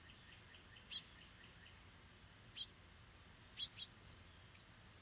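Four short, sharp bird chirps: one about a second in, one past the middle, and a quick pair near the end. Under them, in the first second and a half, runs a faint series of high, evenly spaced chip notes from another small bird.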